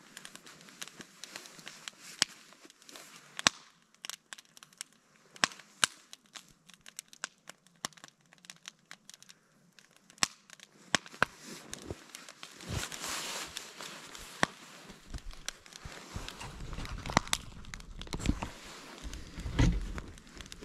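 Wood fire burning in upright split-log blocks, crackling with irregular sharp snaps and pops. From about three-quarters of the way through, a low rumble joins the crackling.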